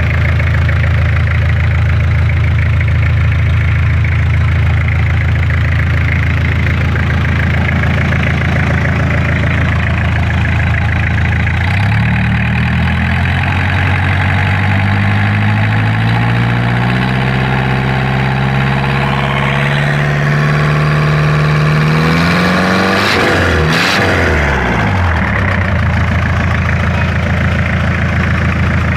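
Nissan TD27 four-cylinder diesel engine idling steadily. About twelve seconds in it revs up slowly for some ten seconds, then drops quickly back to idle.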